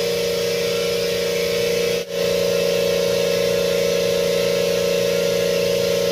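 Kobalt 26-gallon Quiet Tech vertical air compressor running just after switch-on, pumping up its tank: a loud, steady motor-and-pump hum with a hiss over it. The sound drops out for an instant about two seconds in.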